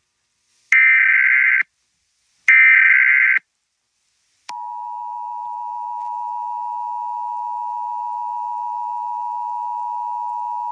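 Emergency Alert System SAME header: two bursts of digital data tones, each about a second long with a short gap between, then, after about a second of silence, the steady single-pitch NOAA Weather Radio warning alarm tone starts about four and a half seconds in and holds. The alarm tone signals that a warning message follows.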